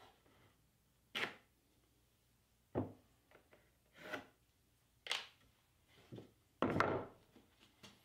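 Pressure-treated pine boards being handled on a workbench: about five separate wooden knocks and scraping slides, irregularly spaced, the longest and loudest near the end.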